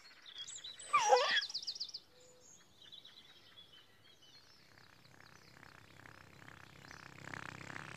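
Birds chirping in a quiet countryside ambience, with a brief baby's giggle about a second in.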